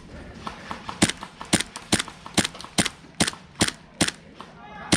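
Airsoft pistol fired in a quick string of single shots, about two to three sharp cracks a second, starting about a second in.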